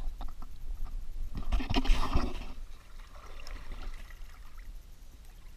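Lake water splashing and lapping around a kayak, with a louder burst of splashing about a second and a half in.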